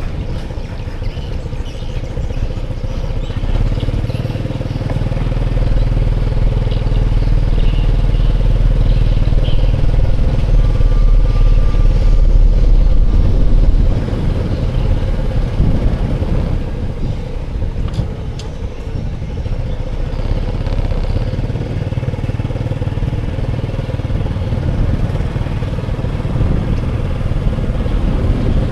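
Motor vehicle engine and road noise, most likely motorcycle traffic. A low rumble builds for about ten seconds, drops off suddenly about halfway through, then carries on more quietly.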